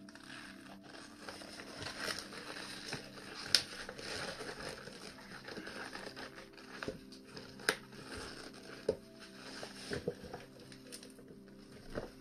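Rubber of a Soviet PBF gas mask and leather gloves rustling and crinkling as the mask is pulled on over the head and then worked off again, with a few sharp clicks.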